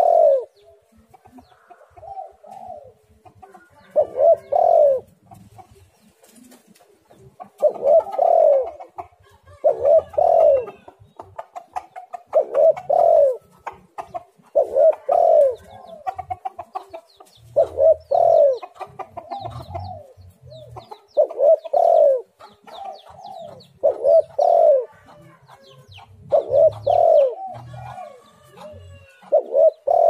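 Spotted dove cooing: a dozen short phrases of two or three low coos, repeating about every two to three seconds.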